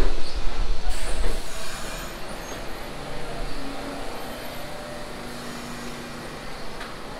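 R62A subway cars rolling past on steel rails: a heavy low rumble for the first second or so, then a quieter run with faint steady whining and squealing tones from the wheels and running gear.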